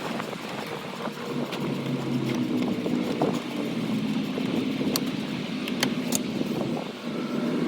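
A steady low mechanical hum, with a few sharp metallic clicks about five to six seconds in from a socket wrench being worked on the starter's cable nut.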